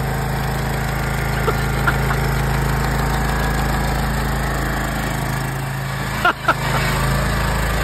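Six-wheeled garden tractor's engine idling steadily, briefly dipping about six seconds in before running on.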